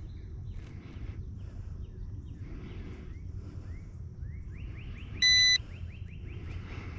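A single loud electronic beep, under half a second long, about five seconds in, over a steady low outdoor rumble with faint repeated chirps.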